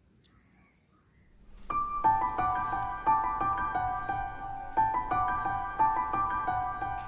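Near silence at first, then background piano music comes in about a second and a half in, with struck notes in a repeating pattern.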